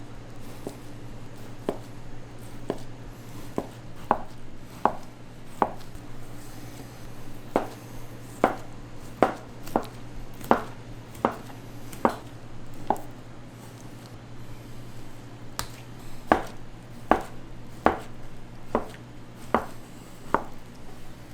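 Knife chopping pork on a cutting board: sharp knocks about every 0.7 s in two runs, with a pause of about two seconds in the middle.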